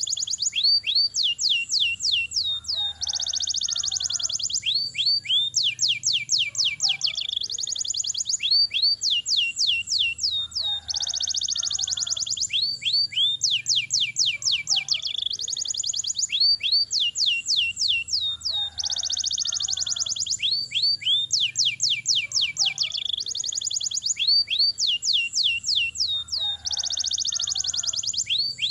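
Domestic canary singing long rolling trills: fast runs of high, sweeping repeated notes in quick succession. The same stretch of song repeats about every eight seconds.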